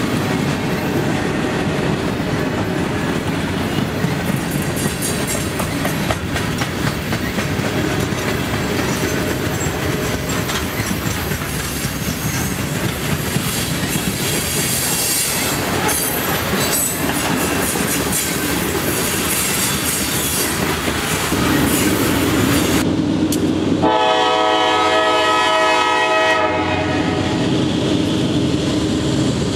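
Freight cars rolling past, steel wheels clacking and rattling over the rails in a steady rumble for about the first twenty-two seconds. Then a diesel locomotive's air horn sounds one long chord for about two and a half seconds, followed by the locomotive's engine running as it approaches.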